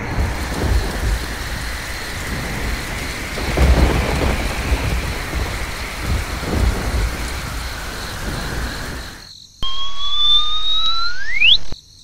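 Thunderstorm sound effect: steady heavy rain with low rolls of thunder, strongest about four seconds in and again near seven seconds. It stops about nine seconds in, and a two-second cartoon-style whistle effect follows, two tones sliding upward, one of them sharply.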